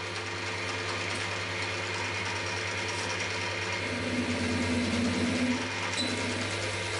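Cormak ZX 7045 mill running a 13 mm HSS drill at 380 RPM through aluminium plate: a steady motor hum, with a louder cutting tone between about four and six seconds in as the drill bites into the metal.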